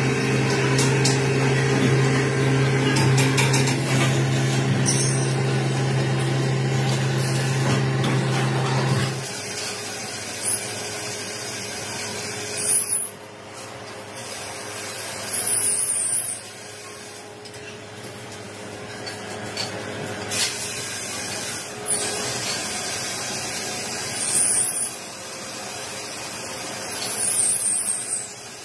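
Workshop machine motor running with a steady hum that cuts off about nine seconds in, followed by several short hisses over a noisy background.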